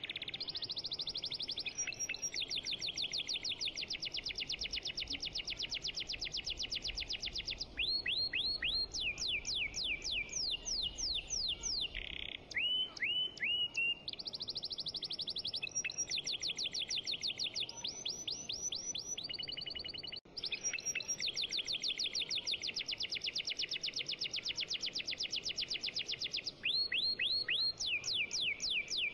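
Bird-like chirping: long, fast trills of high notes with runs of quick downward-sweeping whistles, repeating throughout.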